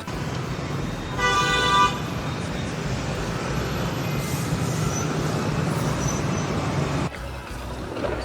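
A vehicle horn toots once, briefly, about a second in, over steady vehicle or traffic noise that cuts off abruptly near the end.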